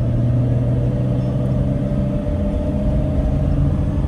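Engine drone and road rumble heard from inside a moving Class C RV's cab: a steady low hum that loosens about halfway through.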